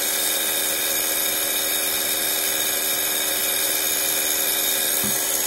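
Handheld hair dryer running steadily: an even rush of air over a constant motor hum. It is heating a vinyl phone skin so the skin softens and settles over the phone's curved edges.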